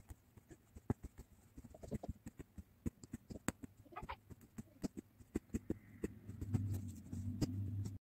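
Punch needle pushing yarn through fabric held taut in an embroidery hoop: soft, irregular taps and clicks, several a second. A low hum comes in for the last two seconds.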